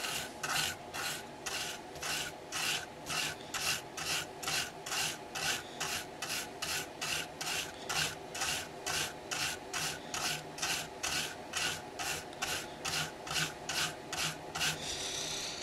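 Toothbrush bristles scrubbing the solder side of a circuit board in quick, even back-and-forth strokes, about three a second. The board is being cleaned of flux with alcohol after resoldering.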